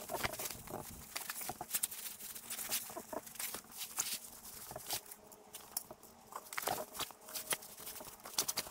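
A run of irregular light taps and clicks.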